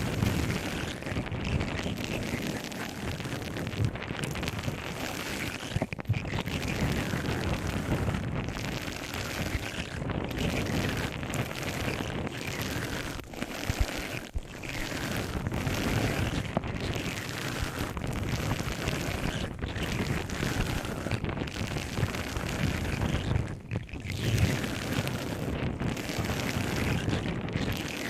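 Close-up scratching and rubbing of an object right at the microphone, in repeated strokes with brief pauses every few seconds.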